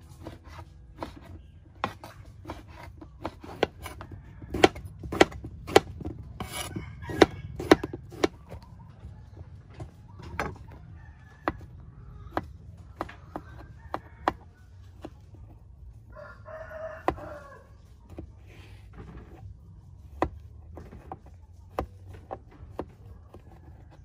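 Knife slicing eggplant on a wooden cutting board: sharp taps of the blade on the board, often about two a second. Sparser taps and scrapes follow as the slices are hollowed out with a spoon and knife. A rooster crows once, about two-thirds of the way through.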